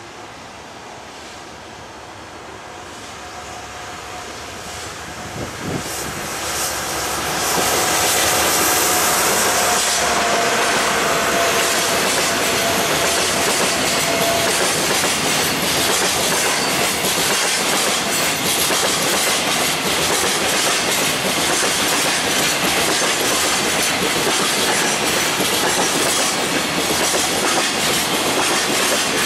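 DD51 diesel-hydraulic locomotive with twin V12 engines approaching and passing, growing louder over the first eight seconds or so. It is followed by a long freight train of container wagons rolling steadily by, with the clickety-clack of wheels over the rail joints.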